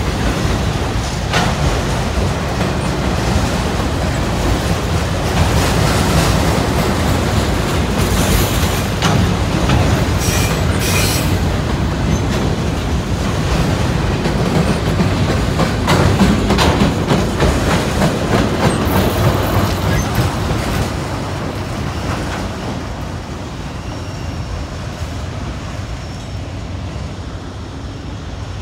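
A loaded freight train of autorack cars rolling past: a steady heavy rumble of wheels on rail with clickety-clack. The wheels squeal briefly, twice, about a third of the way in and again around two-thirds through. The rumble dies down toward the end as the train draws away.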